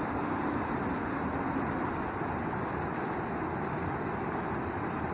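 Water rushing steadily over rocks into the pond, a small white-water cascade.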